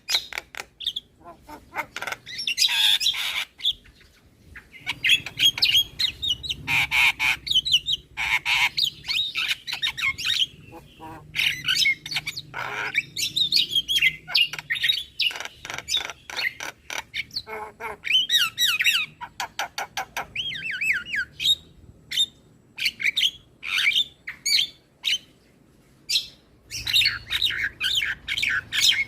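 Javan myna singing: fast chattering, squawky notes and short whistled phrases mixed with sharp clicks, stopping briefly twice.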